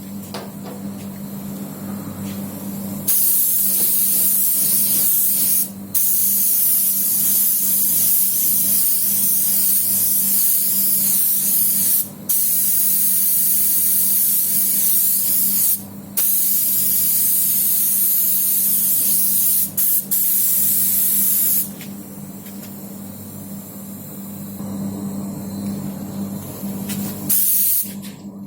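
Paint being sprayed onto a car body panel for a spot repair: a loud hiss of spray starting about three seconds in, running in long passes with a few brief stops, and ending a little over twenty seconds in. A steady low hum runs underneath.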